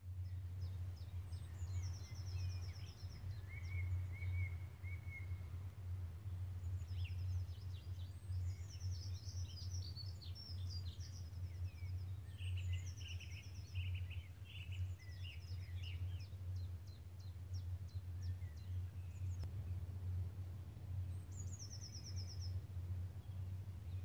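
Songbirds singing in woodland, several short trilled and chirping phrases coming and going, over a steady low rumble.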